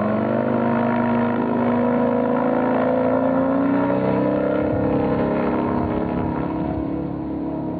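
Microlight trike's engine running at high power as the trike taxis off on its take-off roll, the pitch climbing over the first few seconds and then holding steady, growing a little fainter near the end as it pulls away.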